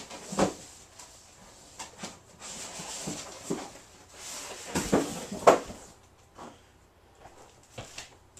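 Parts and packing being rummaged out of the bottom of a cardboard box: a series of knocks and clunks with rustling of packaging in between, the loudest pair about five seconds in.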